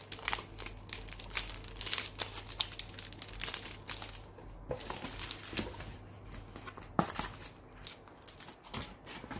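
Plastic protective film and packaging crinkling and rustling as an Apple Wireless Keyboard still sealed in its wrap is handled and set into its box, with irregular crackles and light clicks and one sharper click about seven seconds in.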